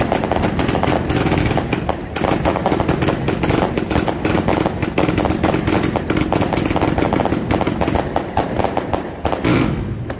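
A long string of firecrackers going off in a rapid, unbroken stream of sharp bangs, slackening briefly near the end.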